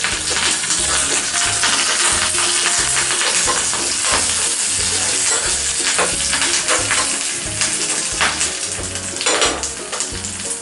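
Curry leaves, dried red chillies and shallots sizzling and spattering in hot oil in a small pan while being fried for a tempering. A spoon stirs them, scraping and clicking against the pan a few times.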